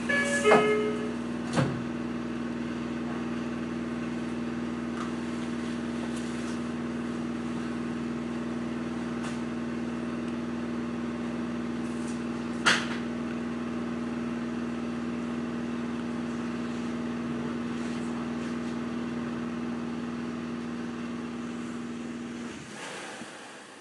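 Steady electrical hum of a Meitetsu 3100 series electric train, with a sharp click about a second and a half in and another about twelve seconds in. The hum cuts off abruptly near the end.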